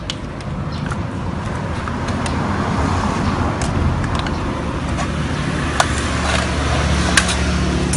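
Low, steady rumble of a motor vehicle engine or road traffic, growing slightly louder, with a few light clicks on top.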